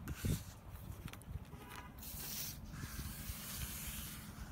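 A hand pressing and sliding along a car's rubber roof-channel trim strip to seat it, with a brushing, hissy rub about two seconds in, over a low steady rumble.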